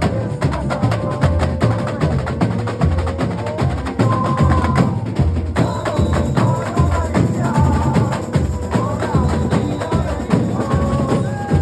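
A carnival comparsa's samba-style percussion section (batería) playing a steady groove: deep bass drums pulse under dense, fast strokes on the higher drums and wooden or bell-like percussion, with a pitched melody line running over the top.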